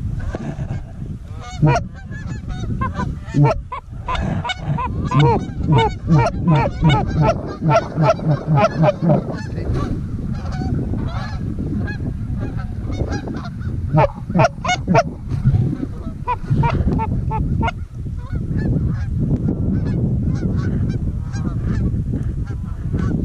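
A flock of geese honking overhead, many birds calling at once in a dense, overlapping chorus of short honks.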